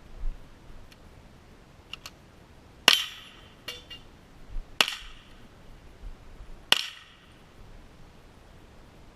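Three sharp .22 rimfire rifle shots about two seconds apart, each with a short ring after it. Fainter clicks and taps fall between them.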